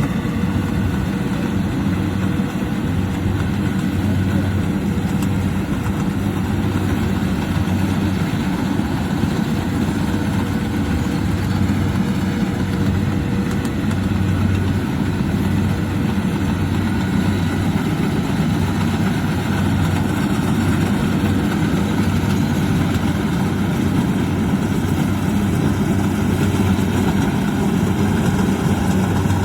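Kubota DC-70 Plus rice combine harvester running steadily: a continuous low engine drone with machinery noise over it, holding an even level throughout.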